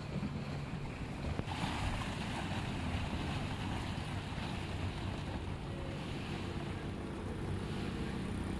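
Wind blowing across the microphone with lake water lapping at the shore and a floating pontoon dock, over a steady low rumble.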